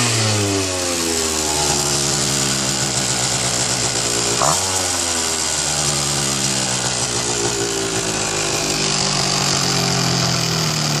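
KTM 65SX single-cylinder water-cooled two-stroke engine in a 1974 KTM Comet moped, running on its stand through an expansion-chamber exhaust. The revs are falling back from a throttle blip at the start. A second sharp blip comes about four and a half seconds in, and the revs drop back slowly to a steady idle.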